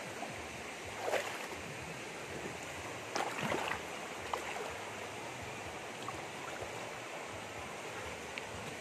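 Shallow stream running over rocks in a steady rush, with a couple of splashes from wading through the water about a second in and again around three to four seconds in.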